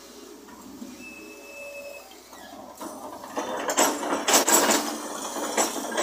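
Excavator bucket digging into a heap of broken stone-block rubble: stones scrape and clatter for about three seconds, starting about halfway through.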